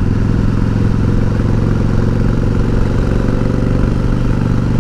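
1988 Harley-Davidson Heritage Softail's 1340 cc Evolution V-twin running at a steady pitch while the bike and sidecar cruise along.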